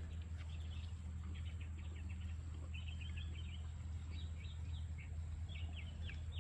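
Small birds chirping repeatedly in short high phrases over a steady low background hum.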